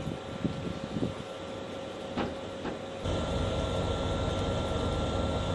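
Choshi Electric Railway 22000-series electric car, ex-Nankai, standing with its onboard equipment running: a steady low hum with a thin high whine, and a couple of light clicks about two seconds in. The hum grows louder about three seconds in.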